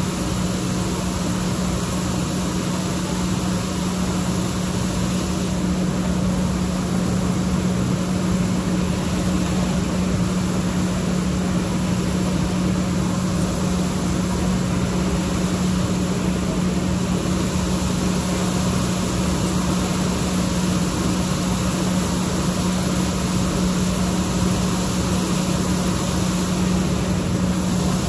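A machine running steadily with a constant low hum.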